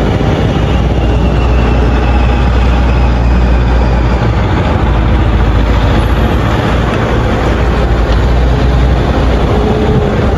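Steady engine and road rumble of a moving vehicle, heard from inside it, with a heavy low drone.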